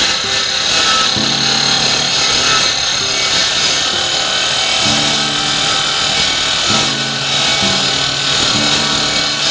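Sliding compound miter saw running and cutting through steel stock: a loud, steady, high-pitched cutting noise.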